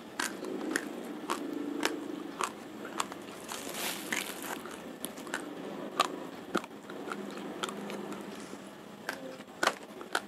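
Raw, uncooked Rojolele rice being chewed with the mouth close to the microphone: the dry grains crunch and crack between the teeth in sharp, irregular snaps, a few each second.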